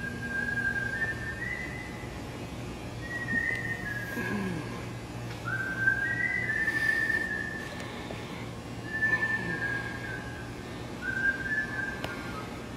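A person whistling a tune: a string of short held notes stepping up and down in pitch, over a steady low hum.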